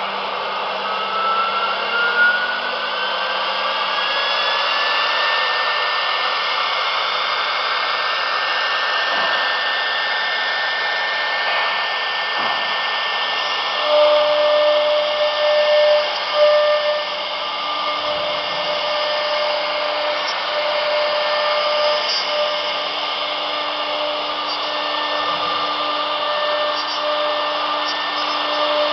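YN-1325 CNC router's spindle spinning up, its whine rising in pitch over the first few seconds and then holding steady. From about halfway, the router cuts grooves in a wood sheet, with extra steady tones that start and stop as the machine moves.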